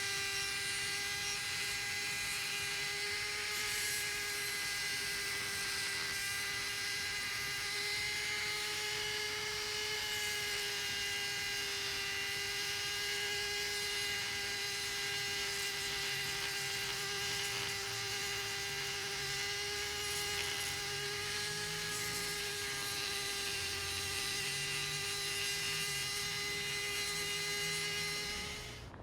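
Small handheld electric tool's motor running steadily with an even, high whine that holds nearly the same pitch throughout, then stops abruptly at the very end.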